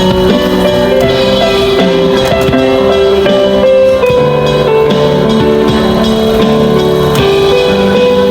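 Instrumental music: a melody of held notes moving step by step over a steady accompaniment.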